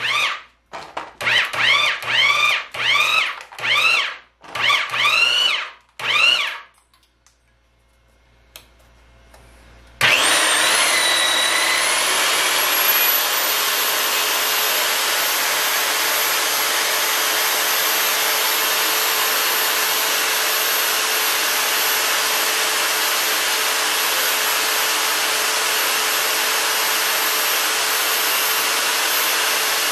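A string of short rising-and-falling whines, then a few seconds' pause. About ten seconds in, the electric motor of a Harbor Freight Central Machinery portable pipe threader starts suddenly, its high whine climbing as it spins up, and then runs steadily while the die cuts a thread on the pipe.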